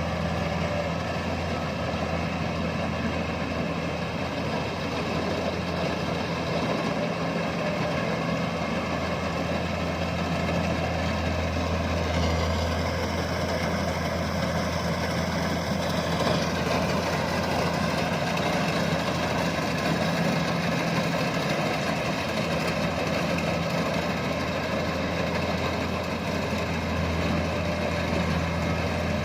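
Rice combine harvester's engine running steadily with a constant low hum; a higher hiss joins in for a few seconds about halfway through.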